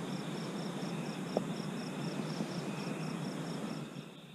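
Night insects chirping in a steady, even rhythm, about four chirps a second, stopping near the end, over a faint low rustling hiss.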